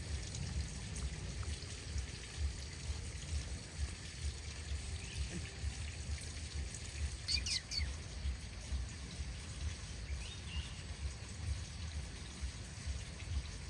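A bird chirping a few quick notes about halfway through, and once more faintly a little later, over a low steady rumble.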